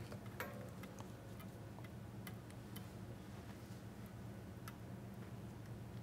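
Faint, irregular light ticks and clicks of a soldering iron tip and solder wire touching the pads of a keyboard circuit board, over a low steady hum.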